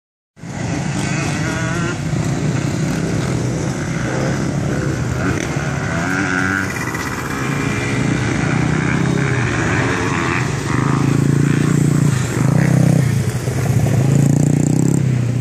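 Children's mini dirt bikes running on a dirt track, their small engines rising and falling in pitch as the riders work the throttle, louder as the bikes come close.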